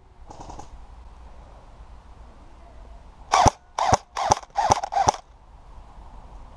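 Airsoft guns firing: a faint short burst just after the start, then five loud short bursts close together about three seconds in.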